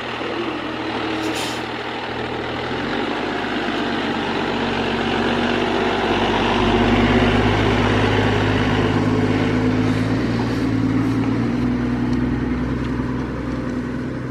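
Large diesel fire truck engine running, growing louder through the middle and easing near the end. A short hiss of air comes about a second and a half in.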